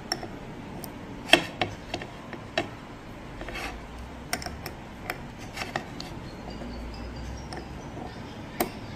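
Irregular small metal clicks and taps from a hex key and an open-end spanner working the screw of an airgun regulator's piston assembly, tightening its stack of bell washers. The sharpest click comes about a second and a half in, another near the end.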